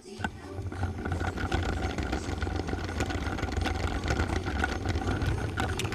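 Toy Lego train running along plastic track: a steady electric-motor hum and whine with a fast, uneven run of clicks from the wheels over the track joints.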